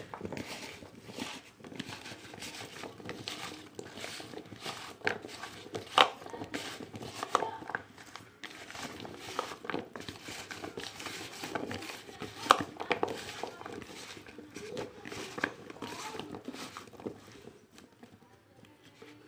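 A hand tossing raw potato fingers coated in cornflour in a bowl: irregular rustling and crackling with sharp knocks as the strips hit each other and the bowl, stopping near the end.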